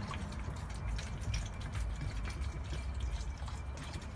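Soda being poured into a one-gallon PETG plastic water bottle, a steady pour as the bottle fills.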